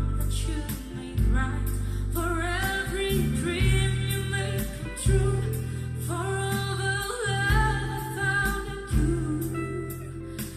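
A song with a singing voice over heavy bass and a steady beat, played through Panasonic SB-PM770 loudspeakers as a listening test.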